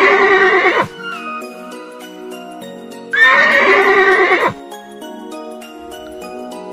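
A horse whinnying twice, the same call each time: the first fades out about a second in, and the second starts about three seconds in and lasts about a second and a half. Background music with short, plucked notes plays throughout.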